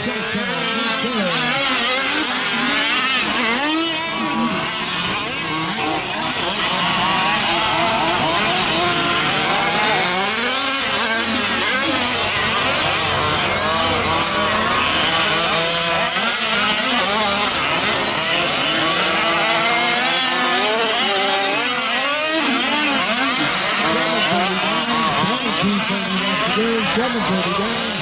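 Several 1/5-scale gas RC trucks racing, their small two-stroke engines revving up and down. Their pitches rise and fall and overlap without a break.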